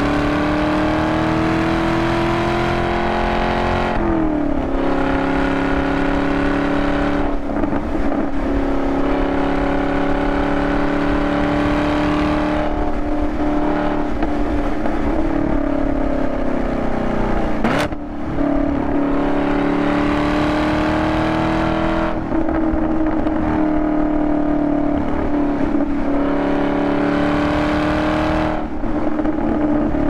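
2020 Camaro SS 1LE's 6.2-litre V8 through a Borla ATAK cat-back exhaust, heard from inside the cabin under hard driving. The engine note climbs and then drops sharply several times as the throttle is opened and lifted, with one sharp crack a little past halfway.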